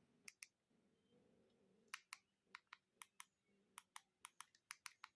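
Nokia 2600 keypad buttons being pressed: a string of faint, sharp clicks, often in quick pairs, as the menus are stepped through.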